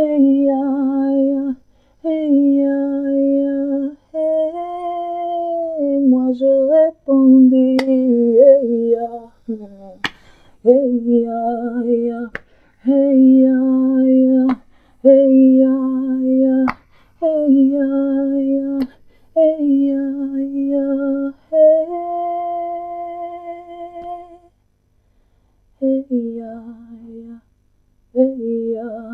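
A woman humming a slow worship melody without words, in long held notes with short breaks between phrases. Six sharp clicks, about two seconds apart, come through the middle of the passage.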